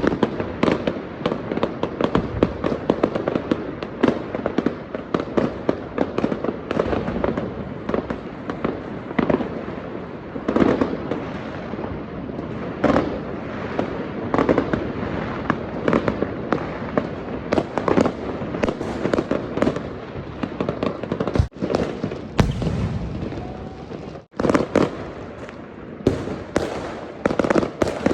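Fireworks going off in a dense, continuous barrage of bangs and crackling pops, many overlapping, with two brief sudden dropouts in the sound a little past the middle.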